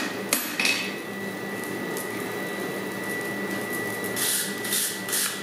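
Steady mechanical hum with a faint high whine, likely a forge blower, under two sharp hammer strikes on hot steel at the anvil within the first second. A few short hissing scrapes follow around four to five seconds in.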